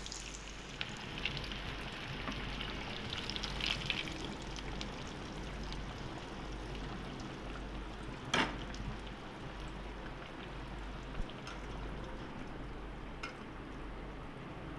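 Bread pakoras deep-frying in hot oil in a kadai: a steady crackling sizzle. There is one sharp knock about eight seconds in.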